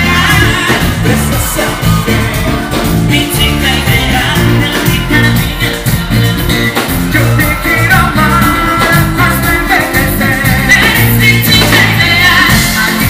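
Loud live Latin pop music: a band with a steady bass beat and singers on microphones.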